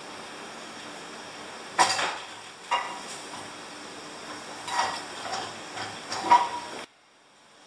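A metal rod sliding through holes in a homemade leg press's steel frame, with several metal clanks and scrapes that ring briefly: one about two seconds in, more around five and six seconds, the loudest just before the sound cuts off abruptly near the end.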